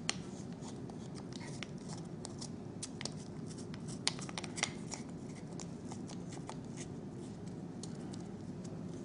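Scattered faint clicks and taps, most in the first half, as a 3D-printed plastic adjustable wrench is adjusted and fitted onto the hex of a steel ball valve, over a steady low hum.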